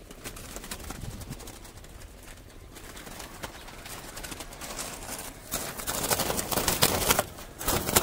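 A pigeon caught in a wire cage trap flapping and battering against the mesh. From about halfway through its wings and the rattling wire make a dense, loud clatter.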